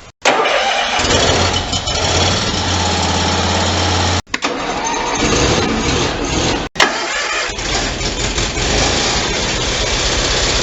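Small lawn-tractor engine running, heard in short edited segments that cut off sharply about four seconds and six and a half seconds in, with a steady low hum in the first segment.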